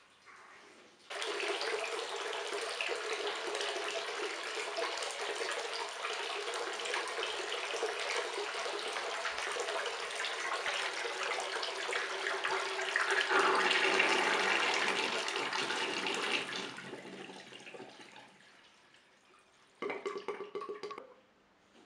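Water running from a tap into a washbasin. It starts abruptly about a second in, grows louder toward the middle and fades away by about 18 s. A short, separate burst of noise follows near the end.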